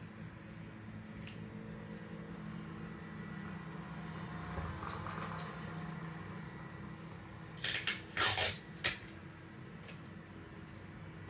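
Paper being handled at a table during paper-and-tape crafting: light scattered clicks and taps, then a few short bursts of paper rustling and crinkling about eight seconds in, over a steady low hum.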